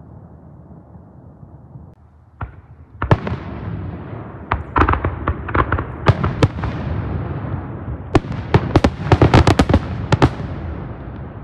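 Aerial firework shells exploding. After a low rumble there is a first sharp bang about two and a half seconds in, then a run of cracks and bangs. Near the end comes a dense, rapid volley of bangs that then dies away.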